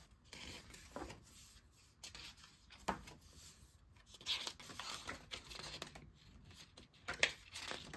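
Paper rustling in several short scrapes as a folded paper insert is opened out and the pages of a photo book are turned.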